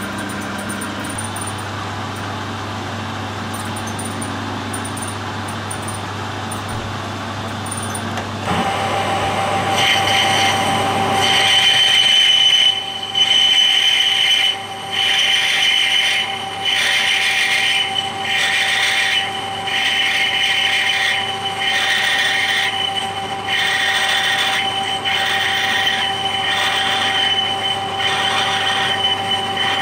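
Metal lathe parting off a small bronze valve part: a steady hum, then about eight seconds in a higher whine joins as the spindle runs. From about eleven seconds the parting tool squeals as it cuts, in regular pulses a little over a second apart.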